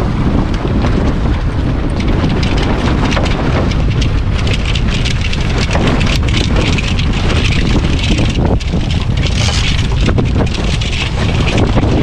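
Wind buffeting the microphone aboard a small sailboat under sail, with water rushing and splashing along the hull, brightest about nine to eleven seconds in.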